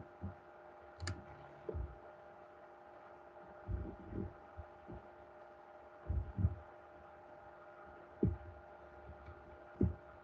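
Faint steady electrical hum with a few soft, irregular low thumps, the kind made by a stylus and hand bumping the desk while writing on a pen tablet.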